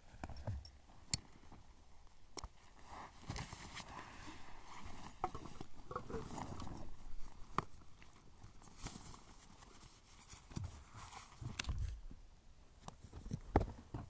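A hiker's footsteps on rock and his handling of a backpack and folding foam sit pad: scattered knocks, low thumps and rustling.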